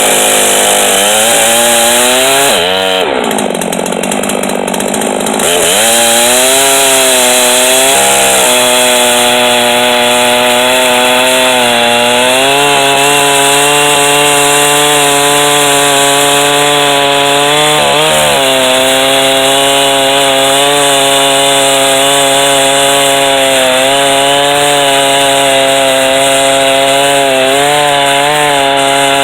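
Chainsaw on a chainsaw mill running at high revs under load, ripping lengthwise through a white oak log. The engine note sags and falls away about three seconds in, climbs back to full speed a couple of seconds later, and dips briefly twice more.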